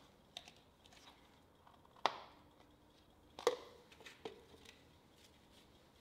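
A few sharp knocks and clicks of workshop items being handled and set down, likely the funnel, measuring cup and dipstick after topping up the oil. The two loudest come about two and three and a half seconds in, each with a brief ring.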